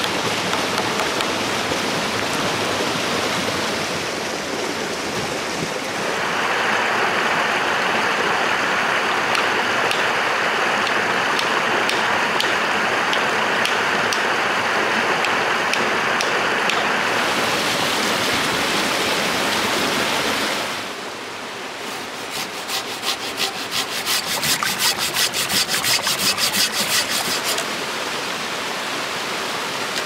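A shallow stream rushing over rocks, a steady roar of water that changes in tone now and then. In the last third, a run of rhythmic scraping strokes of a hand tool working wood, about two a second, rises over the water.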